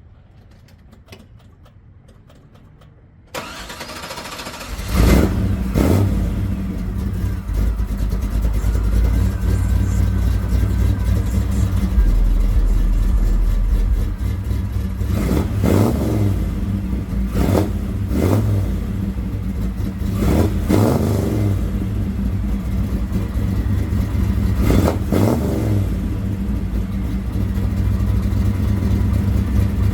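1964 Chevrolet Impala SS V8 engine starting up about four to five seconds in, then running with repeated revs, on freshly fitted spark plugs and plug wires.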